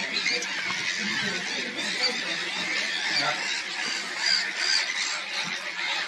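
Sandwich tern breeding colony: many birds calling at once in a dense chorus of overlapping calls, with a few louder calls standing out about four to five seconds in.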